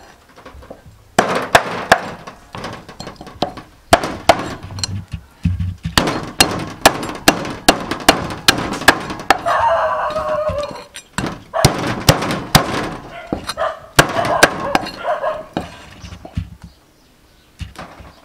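Knife strokes on a wooden chopping board as a whole fish is cleaned and cut: a run of sharp, quick clicks and scrapes, a few a second, pausing now and then. About ten seconds in a rooster crows.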